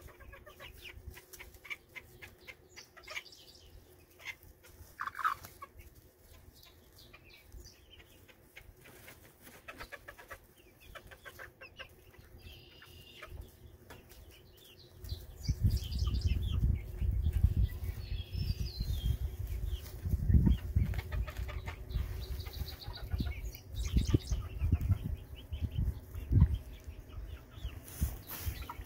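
A flock of miniature chickens clucking and calling softly, with short scratchy sounds in between. About halfway through, a strong low rumbling noise comes in and stays under the clucking.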